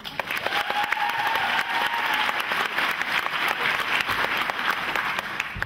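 Audience applauding: a crowd's clapping that breaks out suddenly and dies away near the end, with a thin held high note over the first two seconds.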